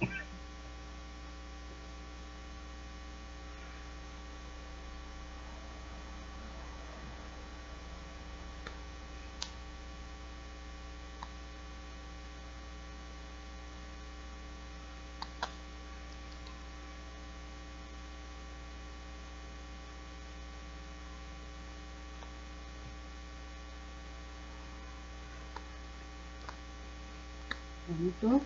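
Steady electrical mains hum, with a few faint clicks scattered through.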